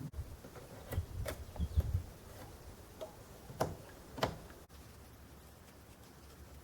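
A handful of light taps and clicks, about six of them spread over the first four seconds or so, with a few dull thumps around one to two seconds in, then only faint background.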